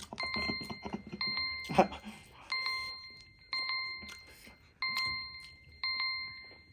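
Timer alarm beeping about once a second, each beep one steady pitch, signalling that the set time has run out.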